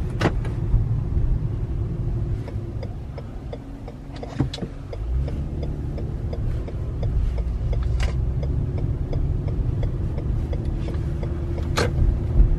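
Inside a moving Toyota car: a steady low rumble of engine and tyres on a snow-covered road, easing off around the middle and building again, with a few sharp clicks.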